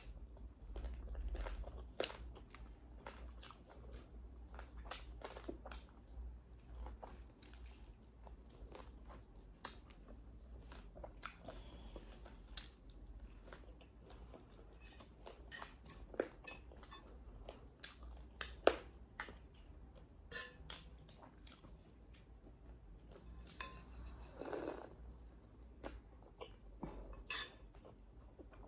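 Close-miked chewing and crunching of crispy fried pork, with many short sharp crunches spread irregularly through the chewing.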